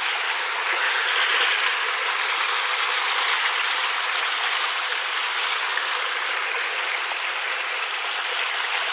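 Floodwater rushing past in a steady, unbroken stream, heard through a police body camera's microphone with no low end.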